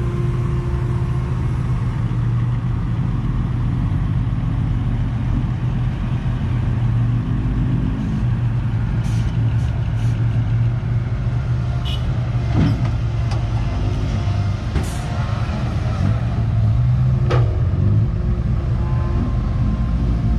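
Komatsu excavator's diesel engine running steadily under load, with several sharp clanks about midway and later.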